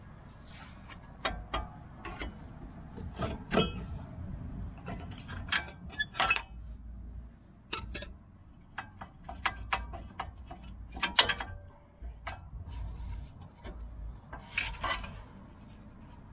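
Brake pads and caliper parts of a car's front disc brake being worked loose and pulled out by hand: irregular sharp metal clicks and clinks, some ringing briefly. The pads are worn and being removed for replacement.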